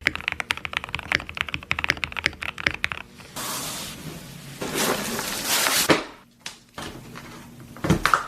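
Fast typing on a mechanical keyboard with KTT Strawberry linear switches: rapid clacking keystrokes. After about three seconds it gives way to a rushing hiss, with a couple of knocks near the end.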